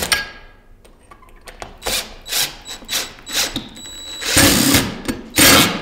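Cordless drill driving a 2-inch wood screw through a wall bracket into a stud. It runs in several short bursts, then in two longer runs near the end.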